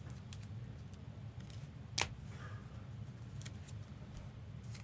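Trading cards being handled: faint rustles and light clicks, with one sharp click about two seconds in, over a steady low hum.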